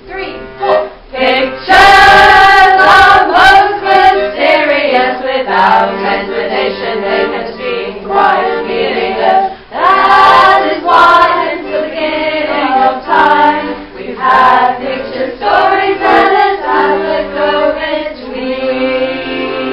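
Singing voices, a woman's voice leading with others joining in, over held accordion chords: the chorus of a song.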